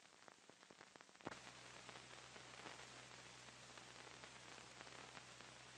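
Near silence: the faint background hiss of an old film soundtrack, with light crackling clicks in the first second and a low steady hum coming in after about a second.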